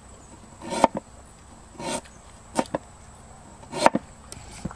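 Cleaver chopping slices off a root held in the hand, four sharp chops about a second apart, with a couple of lighter ticks near the end.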